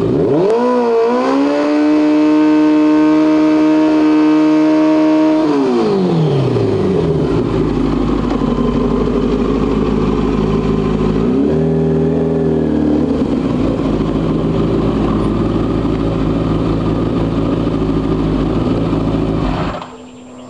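Streetfighter motorcycle engine during a rear-tyre burnout: revs climb sharply and are held high for about four seconds, then slide down to a steady idle. One short blip of the throttle comes midway, and the engine falls silent near the end.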